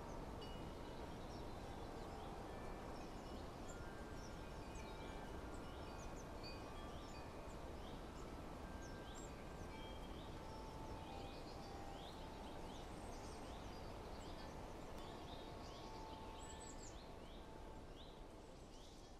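Faint outdoor ambience: a steady hiss with many short bird chirps scattered throughout, fading out near the end.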